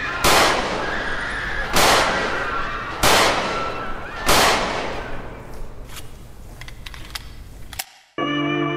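Four gunshots about a second and a quarter apart, each trailing off in an echo, followed by a few lighter clicks. Near the end the sound cuts to silence and plucked-string music begins.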